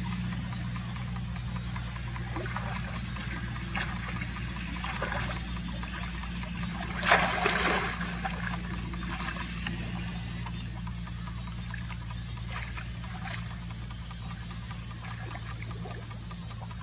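Water trickling and splashing, as in shallow-water net fishing, with a louder splash about seven seconds in and a few smaller ones later, over a steady low hum.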